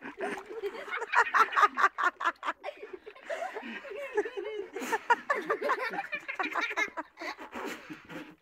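A person laughing hard: a quick run of ha-ha pulses from about one to two and a half seconds in, with high-pitched vocal squeals and giggles around it.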